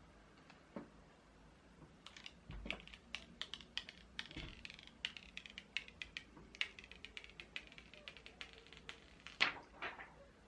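Clear protective plastic film being peeled off a new iPhone XR's screen: a run of small, quick crackles and clicks that starts about two seconds in, with a few louder snaps near the end.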